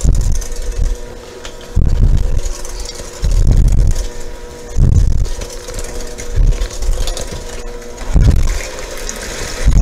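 Corded electric hand mixer running steadily, its beaters whipping a thin egg-and-sugar batter in a stainless steel bowl, with a low thump about every second and a half.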